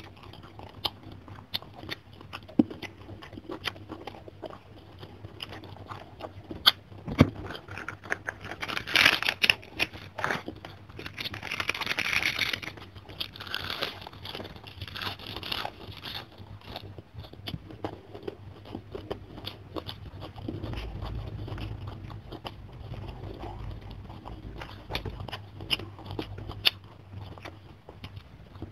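Close-miked eating sounds of a person chewing and crunching mouthfuls of rice, fish and raw napa cabbage, with wet mouth clicks throughout. The crunching is loudest and densest about a third of the way in, then settles into softer chewing.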